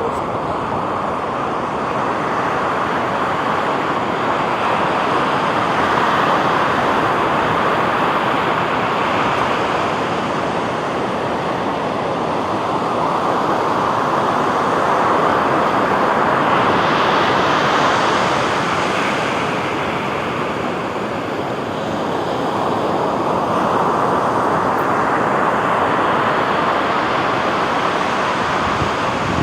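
Sea surf washing onto a beach: a steady rushing that swells and eases every eight to ten seconds as waves break.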